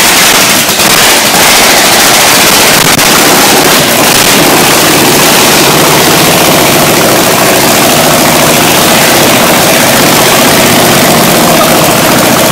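A bare engine on a workshop run stand running very loud and steady with no exhaust system, spitting flame from its open exhaust ports.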